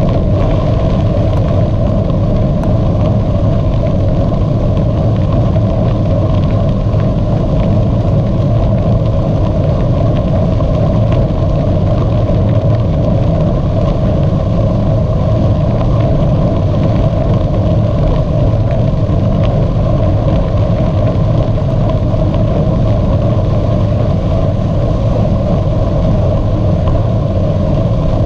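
Steady, loud rumble of wind and rolling noise on the microphone of a camera riding along on a bicycle, unbroken throughout.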